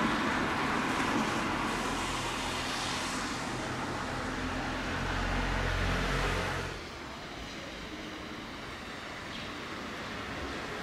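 Street traffic: the noise of a car passing fades away, and a low engine rumble builds before cutting off abruptly about two-thirds of the way through, leaving a quieter, steady street background.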